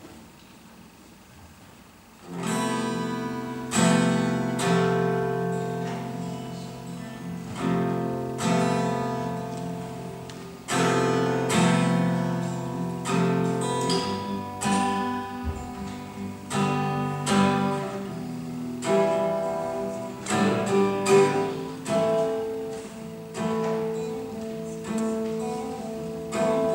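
Solo acoustic guitar playing an instrumental passage, starting about two seconds in: a series of struck chords, each left ringing.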